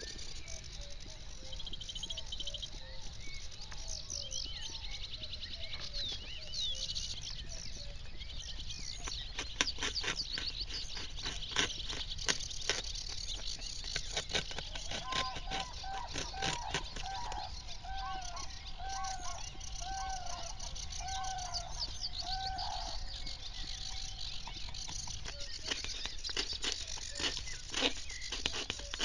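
Several birds singing together in a dawn chorus of chirps and rapid trills over a low steady rumble. Midway through, one bird gives a run of about eight arched, hooting notes, roughly one a second.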